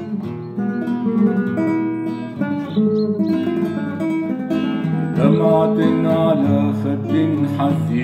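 Nylon-string classical guitar playing picked notes and strummed chords. A man's singing voice joins about five seconds in.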